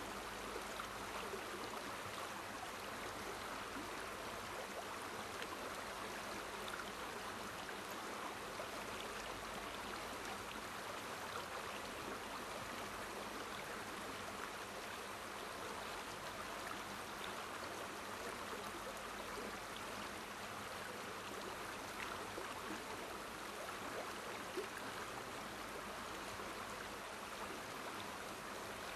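River water flowing over stones, a steady even sound.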